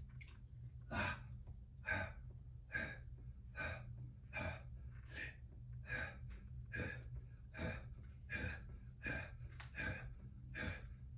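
A man breathing hard while doing push-ups, a short forceful breath about every 0.8 seconds in time with the reps.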